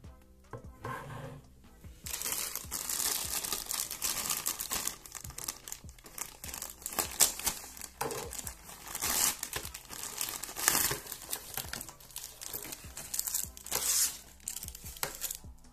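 A clear plastic bag crinkling as hands rummage through it: dense, crackly rustling that starts about two seconds in and stops shortly before the end.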